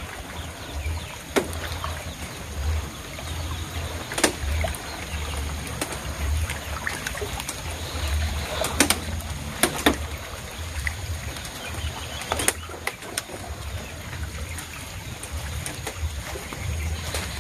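Water sloshing and splashing as people wade through a shallow muddy pond, dragging a fine-mesh net through it. A few sharp clicks or knocks stand out over a low, uneven rumble.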